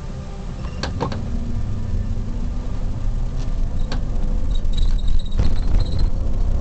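Police car driving, its engine and road rumble heard from inside the cabin and growing slightly louder, with a few sharp clicks about a second in and near the fourth second, and short high chirps around the fifth second.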